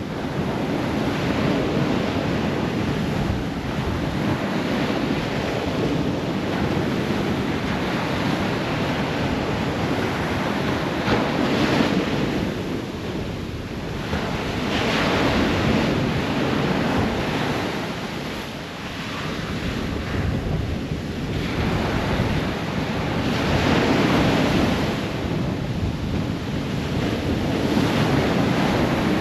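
Ocean waves breaking and washing up the shore, a continuous rush of surf that swells and falls back every few seconds.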